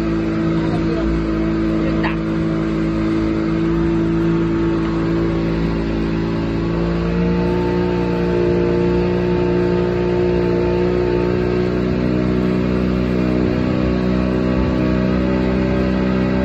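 Speedboat outboard motor running at speed under load, towing a banana boat. Its pitch rises a little about halfway through and then holds, over a steady rushing noise.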